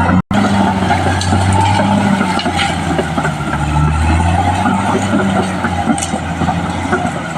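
Caterpillar D6R XL bulldozer's diesel engine running steadily, with a few sharp metallic clanks over it; the sound drops out for a moment just after the start.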